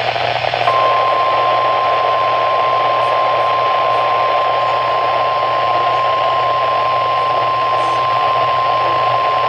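NOAA Weather Radio 1050 Hz warning alarm tone: one steady tone held for about nine seconds, starting about a second in, over the receiver's static hiss. The tone is the alert signal that announces a warning message and switches on alert receivers.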